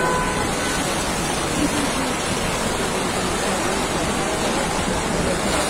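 Heavy thunderstorm rain pouring down as a steady, even hiss.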